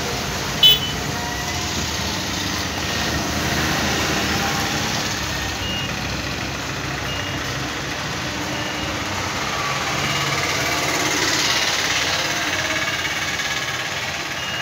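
Steady engine and street noise, with short high beeps repeating about every one and a half seconds from about midway, and a sharp click near the start.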